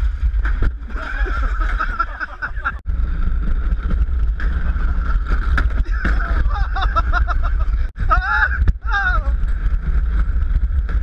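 Luge cart rolling down a concrete track, heard as a steady low rumble of wheels and wind on a helmet-mounted microphone. Riders' voices call out several times, loudest about eight seconds in.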